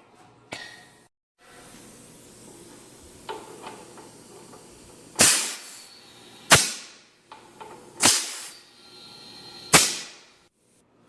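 Four short, sharp hissing bursts, each starting suddenly and dying away within about half a second, spaced a second and a half or so apart, over a steady low hiss.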